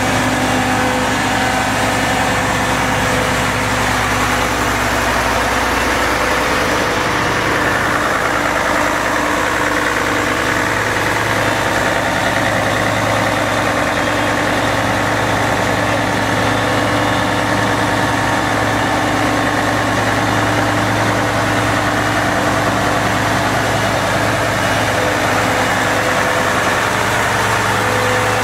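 Diesel engine of a Mercedes-Benz Actros fire truck idling, a steady low hum that holds unchanged throughout.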